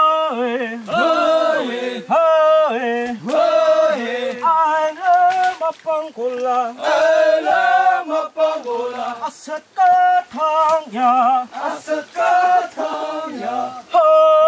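A voice singing a melody in short held notes that waver in pitch, phrase after phrase, with little else under it.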